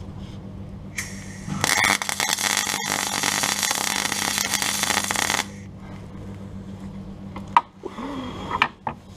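MIG welder arc crackling steadily for about four seconds as a weld is run on a car's steel sill panel, with the welder turned up high. A low steady hum runs underneath, and a few sharp knocks come near the end.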